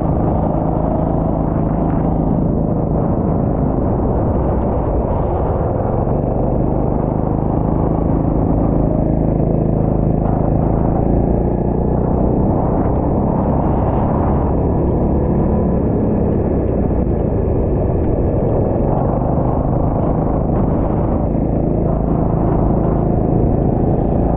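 Go-kart engine running under throttle through a lap, its note rising and falling a little as the kart slows for corners and speeds up again on the straights.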